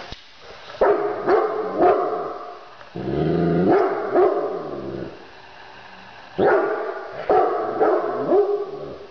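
Big dog barking, deep woofs in three bouts of several barks each: about a second in, again from about three to five seconds, and from about six and a half seconds to near the end.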